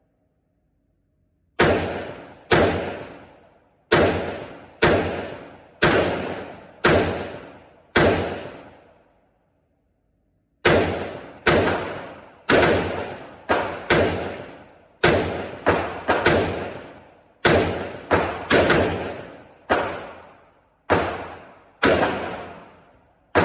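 AR-15 rifle fired semi-automatically from a Promag 65-round drum magazine: about two dozen shots at an uneven pace of roughly one a second, each with a short echo, with a pause of a couple of seconds near the middle. The drum feeds without a stoppage.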